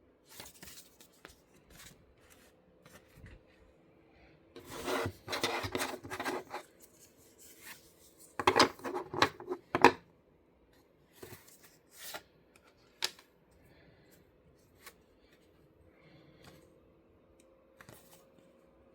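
Card-game packaging being opened and handled by hand, with rustling and scraping in two louder stretches and scattered sharp clicks and taps.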